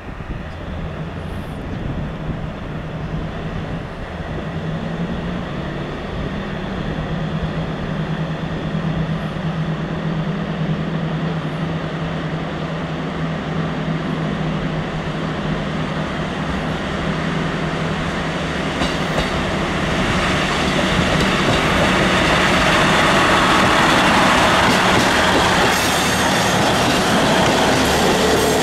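JR Hokkaido KiHa 183 series (0-subseries, slant-nose) diesel multiple unit pulling away and passing close by: a steady diesel engine drone that grows louder, then the louder rolling noise of wheels on rail as the cars go past from about twenty seconds in.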